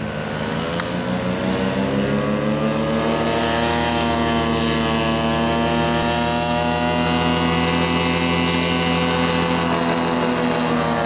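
Paramotor's backpack engine and propeller running at full throttle during a take-off run, its pitch rising over the first few seconds and then holding steady. The engine has no power, so the paramotor does not climb.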